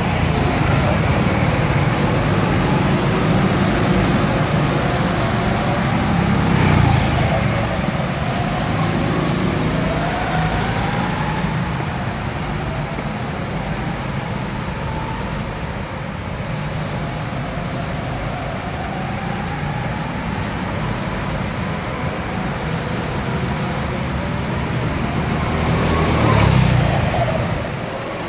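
Go-kart engines running as several karts lap an indoor track, the engine note rising and falling as they go round, with the loudest passes about seven seconds in and near the end.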